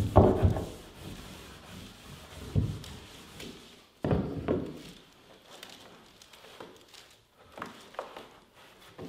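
Hands rubbing and pressing an adhesive-backed carpet tile down onto a painted wooden stair, a dull scuffing rub. A sudden louder thump comes about four seconds in, with a few light taps near the end.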